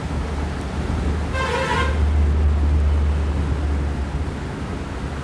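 A vehicle horn toots once, briefly, about a second in, over a steady low rumble.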